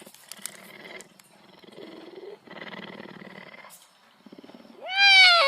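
A wild cat purring in long in-and-out stretches, then one loud meow-like call that rises and then falls in pitch near the end.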